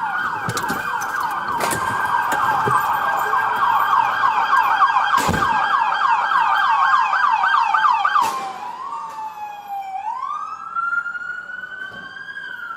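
Police car siren in a fast yelp that switches, about eight seconds in, to a slower, quieter wail rising and falling in pitch. A single sharp click is heard about five seconds in.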